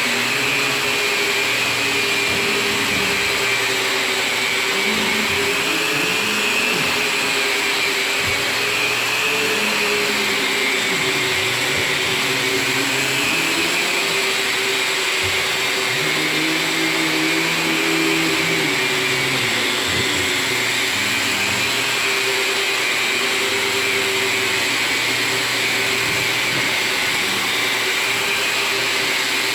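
Electric drywall sander with 240-grit paper running steadily against a drywall ceiling: a continuous motor hum with sanding hiss. The pitch wavers slightly as the pad is pushed along.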